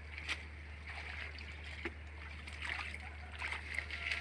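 Shallow muddy water splashing and squelching in short, scattered bursts as hands grope and scoop through mud for fish, over a steady low hum.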